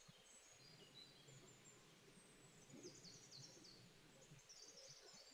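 Near silence: room tone, with a few faint, short high chirps about three seconds in and again near the end.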